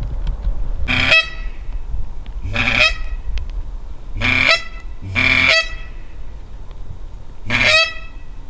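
Duck call blown in five short, loud, reedy quacks, spaced unevenly, imitating a hen mallard to draw ducks in, over a low wind rumble.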